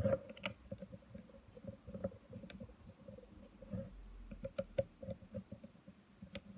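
Small irregular clicks and light scraping of a precision screwdriver and fingers working at the plastic rear of a Nikon 18-55mm zoom lens while its connector piece screws go in, with a few sharper clicks spread through.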